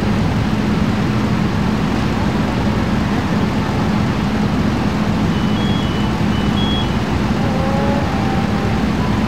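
A heavy engine running steadily with a constant low hum and no change in speed. A few faint short high beeps come about halfway through.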